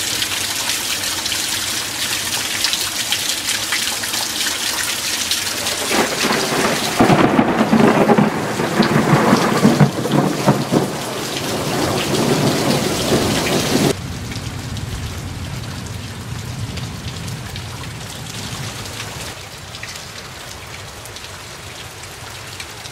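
Rain falling steadily, with a long peal of thunder rumbling and crackling from about six seconds in for several seconds. The sound then drops suddenly to a quieter rain hiss that slowly fades.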